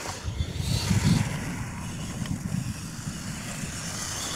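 Radio-controlled monster truck driving over a dirt course: a low, uneven rumble that rises and falls.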